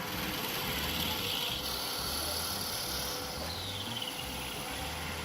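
Wood lathe running with a drill bit boring into the spinning cherry burl and epoxy blank, a steady cutting noise with a low pulsing hum. A faint whistle falls in pitch a little after halfway.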